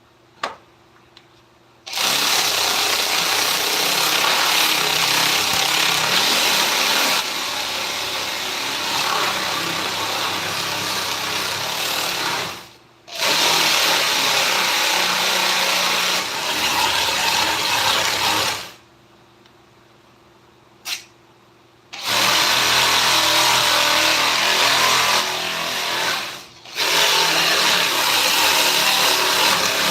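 Handheld power tool working wood, running in long stretches and cutting out briefly three times: once after about ten seconds, again for about three seconds, then for a moment near the end.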